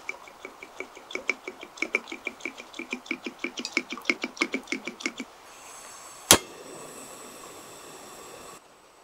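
Gas camping stove's piezo igniter clicking rapidly, the clicks speeding up for about five seconds, then the burner catching with a steady gas hiss. About a second into the hiss comes one loud sharp click, and the hiss cuts off near the end.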